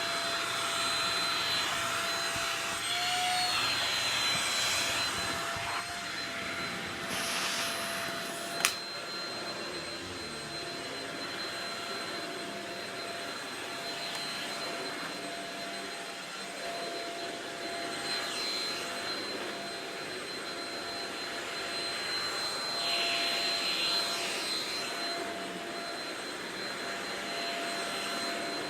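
Shark Rocket stick vacuum running steadily with a high, even motor whine, its suction noise swelling and easing as it is worked over the floor. A single sharp click about nine seconds in.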